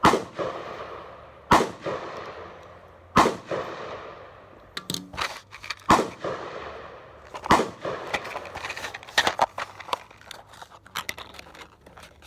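Gunshots: five loud, well-spaced shots about a second and a half apart, each with a long fading echo, mixed with many quieter, quicker shots in between and through the second half.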